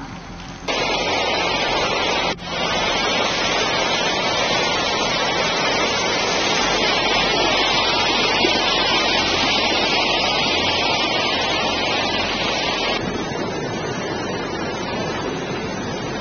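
Floodwater rushing: a loud, steady hiss of moving water, broken off briefly about two and a half seconds in and turning duller near the end.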